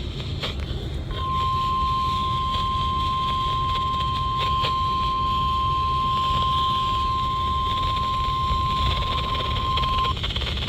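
NOAA Weather Radio warning alarm tone: a single steady 1050 Hz beep that starts about a second in and holds for about nine seconds, over a constant low radio hiss and hum. It signals that a new alert broadcast is about to be read.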